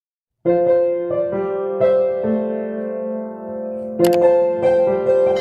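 Intro music played on a piano-sounding keyboard, starting about half a second in with held chords that change every half second or so, and a fresh chord struck about four seconds in.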